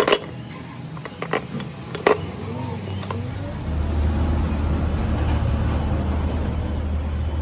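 A few sharp clicks of metal motorcycle handlebar parts being handled, then from about halfway a steady low rumble like a vehicle engine running.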